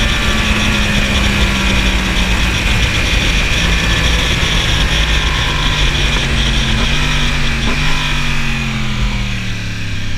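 2015 Yamaha R1 crossplane inline-four running under the rider, its note falling as the bike slows, with two brief jumps in pitch about seven and eight seconds in as it shifts down. Wind rushes over the microphone throughout.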